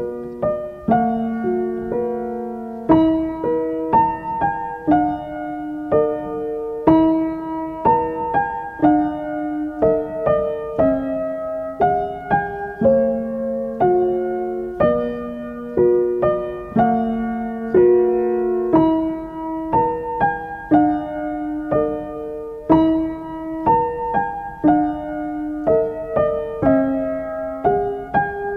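Background piano music, single notes struck at an even, unhurried pace of about two a second over held lower notes.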